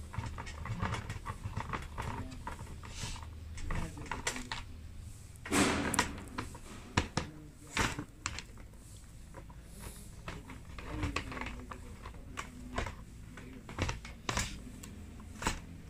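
Scattered, irregular clicks and knocks of a screwdriver working the casing screws of an electric heater and parts being handled, with a louder clatter about five and a half seconds in.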